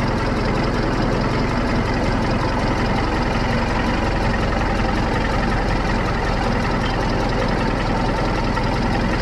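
Case 830 tractor engine running at a steady speed, heard from the driver's seat as the tractor drives along.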